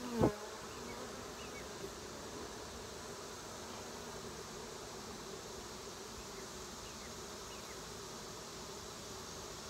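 Steady, dense buzzing of a large honeybee colony flying around its opened hive. There is one short thump right at the start.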